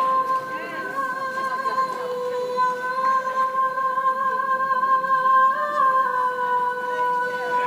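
A female singer holds one long, steady high note over quiet accompaniment in a live performance, the pitch lifting slightly about five and a half seconds in before settling back.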